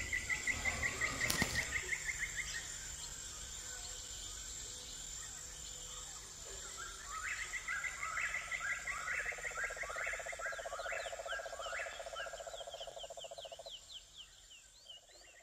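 Night-time chorus of insects and frogs. A fast pulsing insect chirp comes first. From about seven seconds in, repeated short rising calls sound over a low rattling trill, and all of it fades out near the end.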